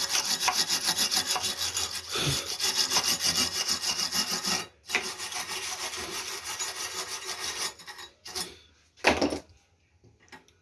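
Hand wire brush scrubbing fast back and forth, about five strokes a second, on the steel inside a pickup's step rail to clear out dust and dirt. It pauses briefly, carries on, and stops about three-quarters of the way through, followed by a few short knocks.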